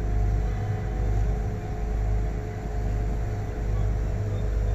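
Cruise boat's engine running, a steady low rumble that swells and eases every second or so under a constant hum.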